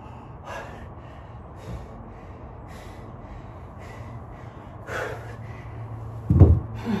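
A man breathing hard in short, heavy gasps about once a second, winded from dumbbell burpees in a weight vest. About six and a half seconds in comes a single heavy thump, the loudest sound.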